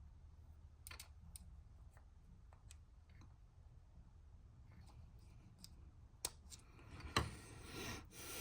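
Faint, scattered metal clicks and ticks of a small flat-tip screwdriver working the top snap ring (C-clip) around in the bore of a 6.0 Powerstroke fuel injector. There is a sharper click a little after six seconds, then a louder knock with some handling noise near the end.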